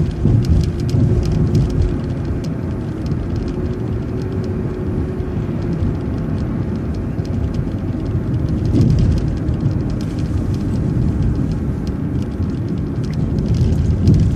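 City transit bus driving, heard from on board: a steady low engine and road rumble with a faint constant whine, and many small rattles and ticks.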